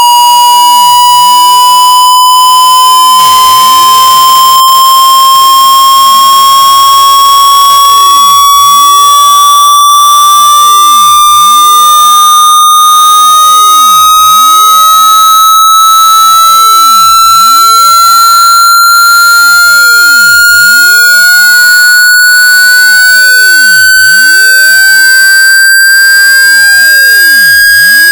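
Square-wave hearing-test tone sweeping slowly and steadily upward in pitch: a loud, buzzy electronic tone with strong overtones, climbing gradually through the middle of the frequency range.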